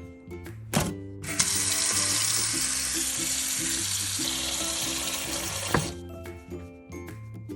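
Water running hard from a kitchen tap into a sink for about four and a half seconds, starting just over a second in and stopping near the end, with a sharp knock just before it starts and another as it stops.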